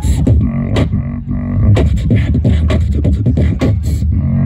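Beatboxer making a fast rhythm of sharp vocal drum hits into a microphone, over a steady low hummed tone.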